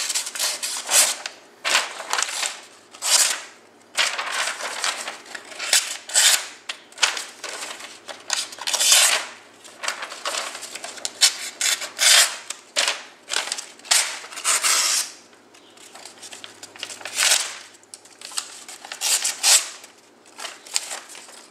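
A 440 stainless folding knife blade making a long series of slicing cuts to test its out-of-the-box edge: about twenty short, irregularly spaced rasping strokes.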